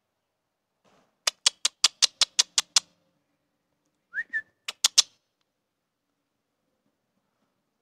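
A person clicking their tongue rapidly, about eight sharp clicks in a row, then a short rising kissing chirp and three more clicks: voice cues driving a loose horse on.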